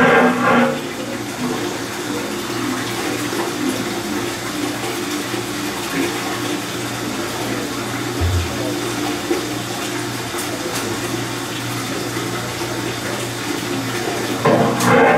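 632 cubic-inch big-block V8 marine engine running at a steady idle on an engine dyno, with a rushing noise underneath. It gets louder briefly right at the start and again near the end.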